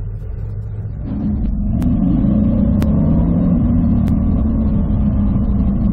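Lister Bell Lancia Stratos replica's engine running as the car pulls away, getting louder about a second in and then holding a steady note as it drives down the road.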